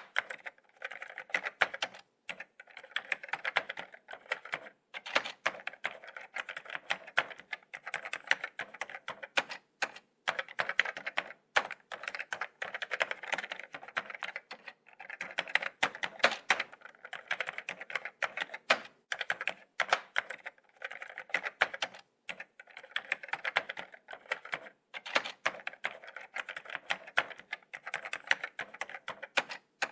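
Laptop keyboard being typed on: quick runs of light key clicks, broken by short pauses, with an occasional louder single key press.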